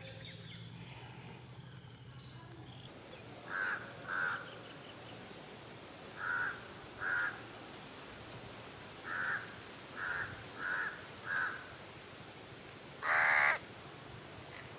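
Crow cawing: eight short caws, mostly in pairs, then one louder, longer caw near the end.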